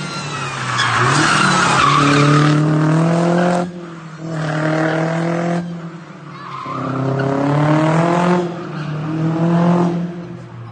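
Mercedes-Benz CLK 230 Kompressor's supercharged 2.3-litre four-cylinder engine revving hard in four rising bursts, each cut off sharply, with the tyres squealing as the car drifts.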